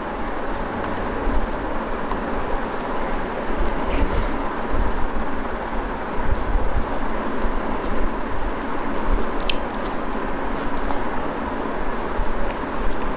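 A person eating a rice-and-dal meal by hand, with soft squishing and chewing and a few small clicks, over a steady background hiss.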